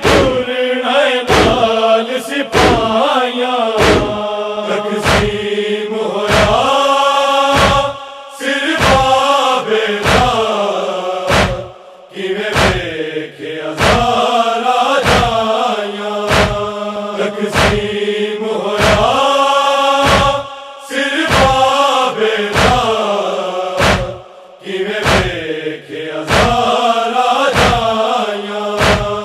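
Male group chanting a Punjabi noha in unison, long held and gliding notes, over a steady beat of sharp chest-beating (matam) thumps.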